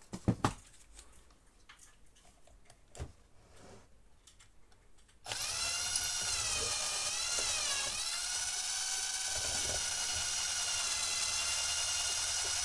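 Eon 12-volt cordless drill/driver starting about five seconds in and running steadily as it backs a screw out of an RO pump head, its whine dipping in pitch briefly under load before steadying. Before it starts, a few light clicks of screws and parts being handled.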